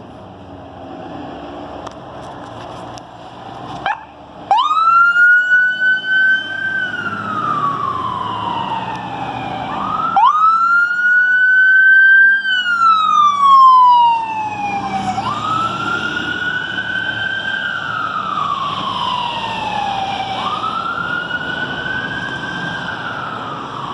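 Fire truck siren wailing: from about four seconds in, each cycle rises quickly, holds, then glides slowly down, repeating about every five seconds, over the rumble of the trucks.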